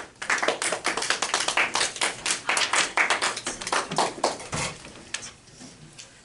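A small group of people clapping by hand. The applause is dense for about four seconds, then thins out and dies away.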